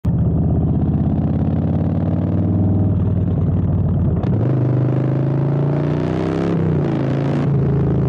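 Harley-Davidson Street Bob's V-twin running through open drag pipes while riding, a deep, loud, uneven exhaust note. About four seconds in the note changes, then climbs in pitch as the bike accelerates.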